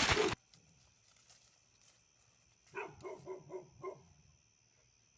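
A dog barking five times in quick succession, about three seconds in. Just before, a loud burst of noise cuts off suddenly.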